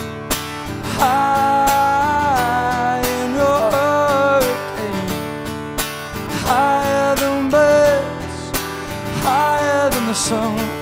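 Acoustic guitar strummed steadily under a man's voice singing four phrases of long, sliding held notes.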